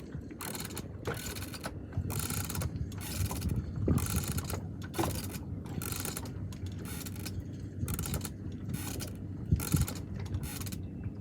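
Fishing reel being wound in, its gears whirring in repeated bursts, about one to two a second, as a hooked red cornetfish is brought up.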